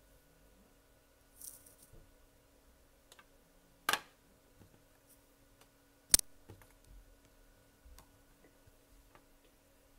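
Scattered small clicks and taps from handling things close to the microphone, with two sharper clicks about four and six seconds in, over a faint steady hum.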